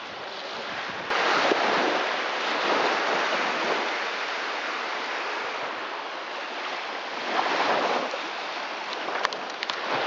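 Small sea waves washing onto a sandy beach, mixed with wind on the microphone. The noise jumps up about a second in and swells again near the end.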